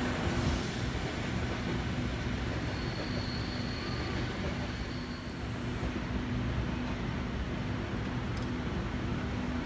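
Steady low rumble of electric double-deck suburban trains at a distance, one moving away and another far off, with a faint thin high whine for a couple of seconds about three seconds in.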